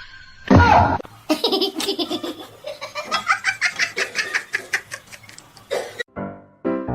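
A person laughing hard: a loud burst, then a long run of quick, repeated laughs that stops about six seconds in.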